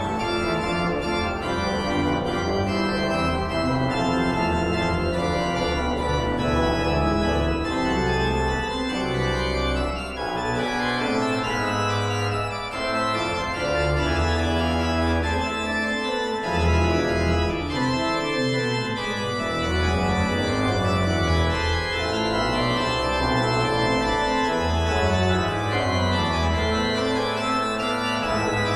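Organ music: sustained chords over a bass line that changes every second or two.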